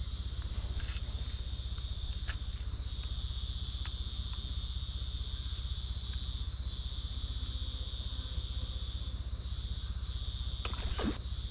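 Steady chorus of insects, a continuous high-pitched buzzing, over a low rumble, with a couple of faint clicks near the end.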